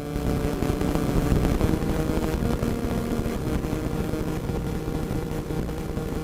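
Radio static: a steady hiss thick with crackles, over a low rumble and a faint steady droning tone.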